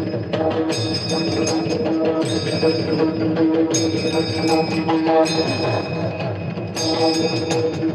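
Devotional kirtan music: drum strokes and ringing hand cymbals that come back about every second and a half, over a steady held note.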